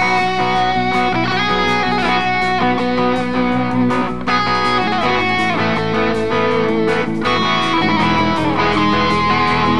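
Rock music led by electric guitar, with drums.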